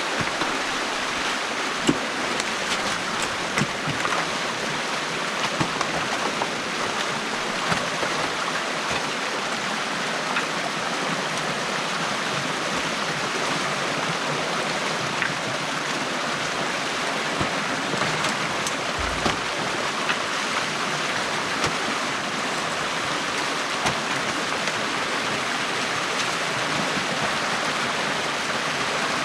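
Stream water rushing steadily through an opening in a beaver dam, with small scattered clicks and splashes.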